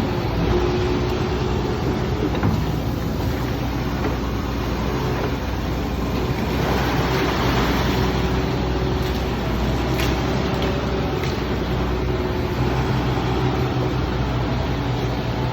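Excavator's diesel engine running steadily under load, with a couple of brief knocks.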